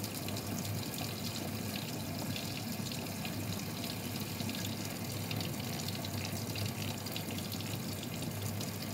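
Tap running at full flow through a white screw-on tap filter, the stream splashing steadily into a ceramic sink basin.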